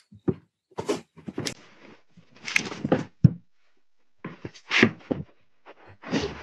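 Rustling of clothes and bedding as a jacket is handled and a blanket pulled over, in a series of short bursts with soft thumps on the bed and one sharp click a little over three seconds in.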